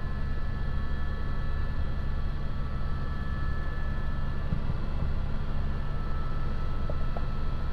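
Helicopter in flight heard from inside the cabin: a steady low drone of rotor and engine, with a constant high whine above it.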